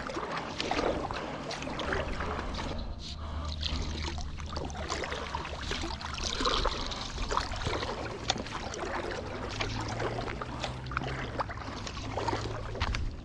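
Paddle strokes dipping and splashing beside a stand-up paddle board, with water rushing along the hull, stroke after stroke.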